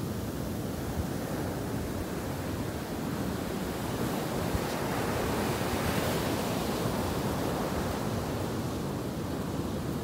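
Ocean surf breaking and washing up a sandy beach, swelling louder about halfway through, with wind rumbling on the microphone.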